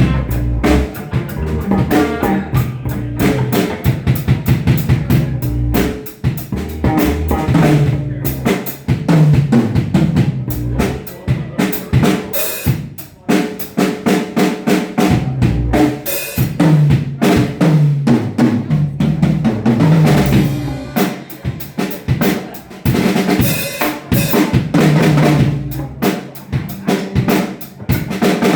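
Live band playing an instrumental funk groove, with the drum kit loudest: kick, snare and rimshots over a repeating bass line.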